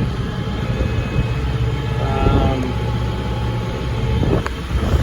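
Ford 7740 tractor's diesel engine running steadily as the tractor drives, heard from inside the cab, with a single sharp click about four and a half seconds in.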